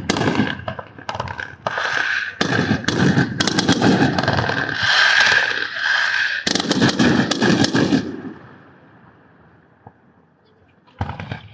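Fireworks going off in rapid volleys, a dense run of bangs and crackles for about eight seconds that stops suddenly, followed by one more short bang near the end.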